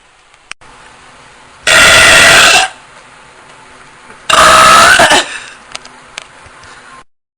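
Two loud forced burps, each about a second long: one about two seconds in and another a little after four seconds.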